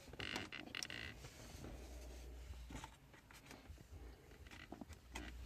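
Faint scattered clicks and rustles of parts being handled, over a low steady hum.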